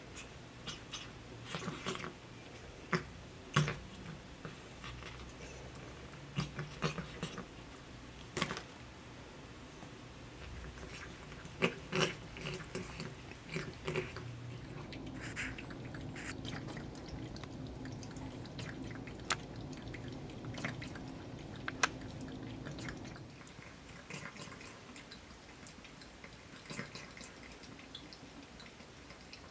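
Persian cat lapping water from a thin trickle running out of a bathroom faucet: irregular wet clicks of its tongue, with the water dripping into the sink.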